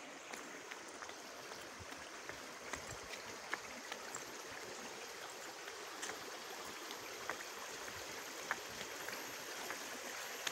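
Water running steadily in a small stream, with a few faint, scattered ticks over it.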